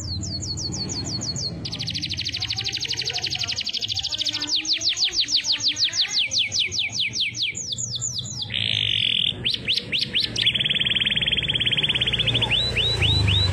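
Domestic canary singing a long, loud song. Fast runs of repeated falling whistles alternate with rapid, even trills.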